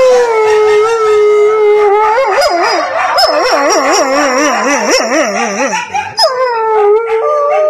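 Wolfdog howling: one long held howl, joined partway through by a second voice with quick wavering yips that rise and fall. A short break about six seconds in, then a new howl that slides slowly downward.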